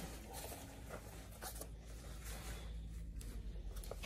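Faint rustling and rubbing of a mesh textile motorcycle jacket as hands handle and smooth it, with a few soft scratchy brushes of fabric.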